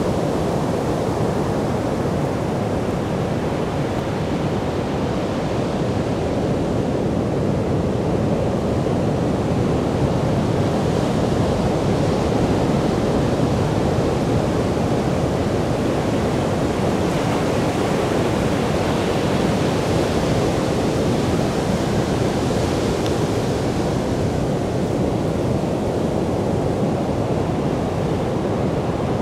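Sea surf breaking and washing up a sandy beach: a steady rush of waves with no pauses, swelling a little about two-thirds of the way through.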